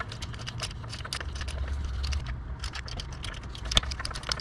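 Hand ratchet with a T25 Torx bit clicking in quick, uneven runs as it backs out the screws holding a MAP sensor to a throttle body, with one sharper click near the end.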